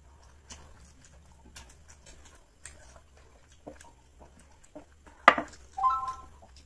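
Close-miked eating sounds of people eating biryani by hand: scattered soft wet clicks of chewing and lip-smacking. A loud sharp smack comes a little past five seconds in, then a short pitched sound.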